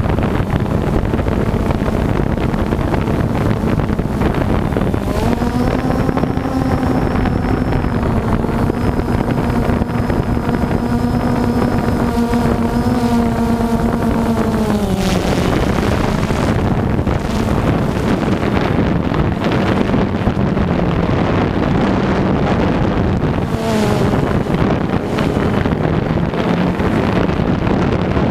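DJI Phantom 2 quadcopter's electric motors and propellers humming steadily, with heavy wind and prop-wash rush on the onboard camera's microphone. About five seconds in the motor pitch steps up and holds for about ten seconds as the drone climbs, then drops back to a lower hum.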